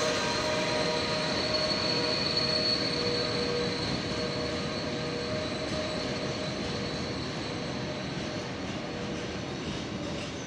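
Freight train of rail tank wagons rolling past on the tracks: a steady rumble of wheels on rail with a sustained high squeal from the wagons that fades near the end.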